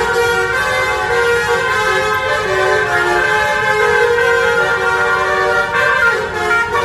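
Basuri 'telolet' musical horn on a bus playing a continuous tune of several tones stepping from note to note, with a low rumble underneath.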